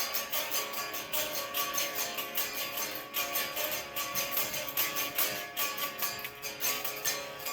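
Guitar music, strummed chords in a steady rhythm.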